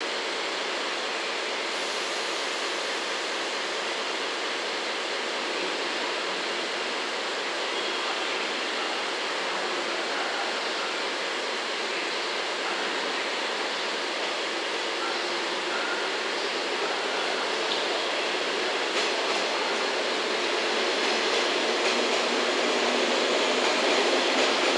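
Steady running noise of a JR West 113 series four-car electric train at the platform. It grows louder over the last few seconds as the train pulls out and its cars roll past.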